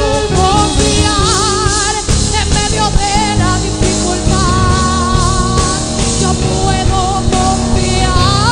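Christian worship song: a woman singing, with vibrato, over a full band with drum kit.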